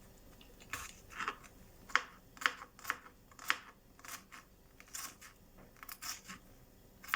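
Knife chopping garlic cloves on a cutting board: irregular sharp taps of the blade on the board, roughly one to two a second.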